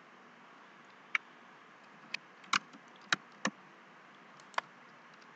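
About six short, sharp clicks at irregular intervals from a computer mouse and keyboard being worked, over a faint steady hiss.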